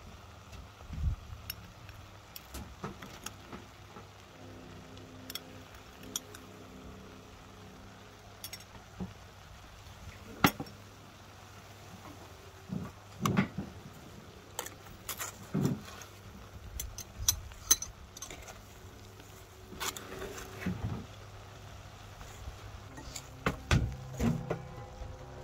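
Utensils being handled over a clay cooking pot: occasional light clinks and taps of a metal spoon and dish, the sharpest about ten seconds in, over a low steady background rumble.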